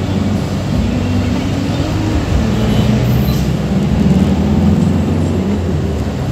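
Shuttle van's engine and road noise heard from inside the cabin while driving in traffic, the engine note rising and falling as the van speeds up and eases off.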